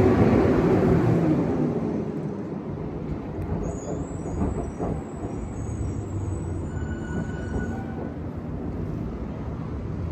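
A large vehicle passing and fading away over the first couple of seconds, then a steady low traffic rumble.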